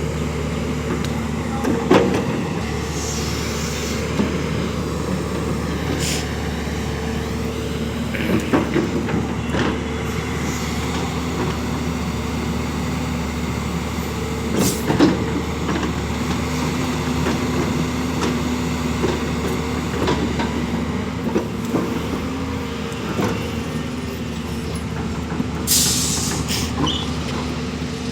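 JCB backhoe loader's diesel engine running steadily, with a few sharp knocks and clanks from the machine at work.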